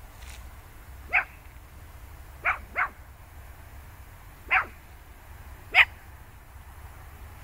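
A dog barking five times in short, sharp barks spread over several seconds, the second and third coming in quick succession.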